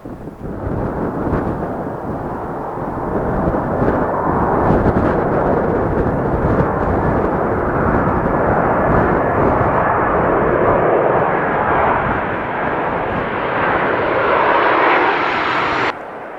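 Aircraft passing close by: engine noise swells over the first few seconds and then holds loud, with a thin whine rising near the end. It cuts off abruptly just before the end.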